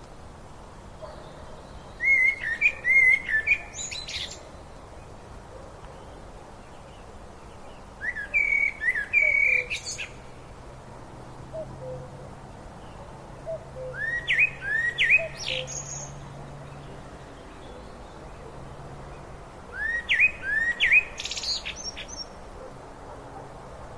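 A songbird singing the same short phrase of quick chirps and whistles four times, about once every six seconds, over a steady hiss of running river water.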